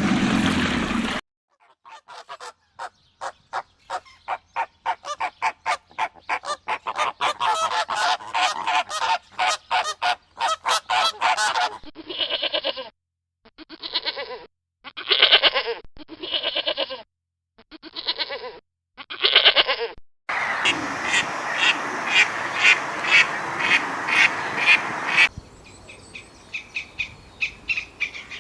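Several short clips of birds calling, cut one after another: long runs of rapid repeated calls, then a stretch of separate bursts of calls, then another fast run, and smaller birds chirping near the end.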